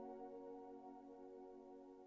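Slow, soft piano music: a sustained chord ringing on and gradually fading away, with no new notes struck.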